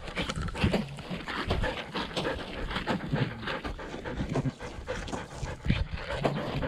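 Kelpie sheepdog panting hard close up as it runs, with irregular knocks and rustles from the camera strapped to its body jostling with each stride.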